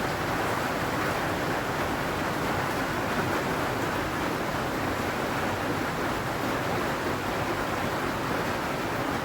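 Steady rain falling on a zinc (corrugated metal) roof, a dense even patter.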